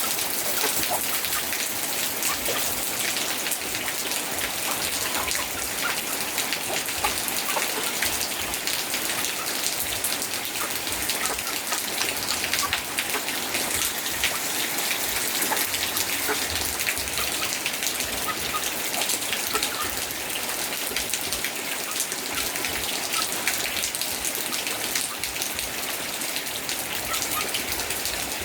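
Steady rain with many sharp drop ticks, and chickens clucking faintly under it as they feed.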